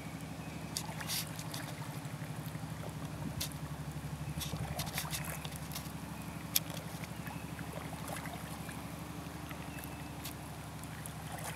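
Kayak paddling: light drips and small splashes as the paddle blades dip and lift, over a low steady drone.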